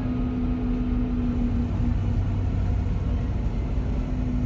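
Volvo B9R coach's rear-mounted six-cylinder diesel and running noise heard from inside the passenger saloon while under way: a steady low drone with a constant hum.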